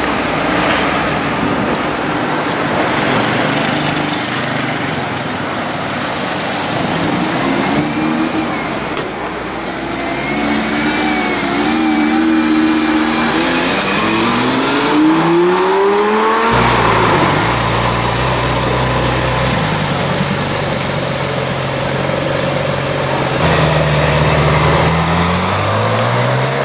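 Supercar engines on the street. A Lamborghini Gallardo's V10 accelerates, its pitch climbing again and again through the gears for several seconds. After a sudden cut, a Ferrari 458's V8 runs at a steady low note, gets louder and revs up near the end.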